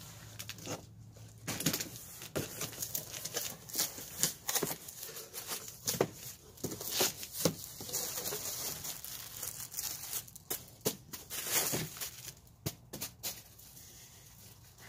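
Cardboard box being opened and its packing handled: cardboard flaps tearing and scraping, then crinkling of plastic packing wrap around a new radiator, in irregular rustles and clicks.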